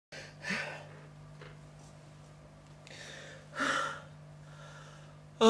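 A man breathing out heavily, two sigh-like breaths about three seconds apart, over a steady low hum.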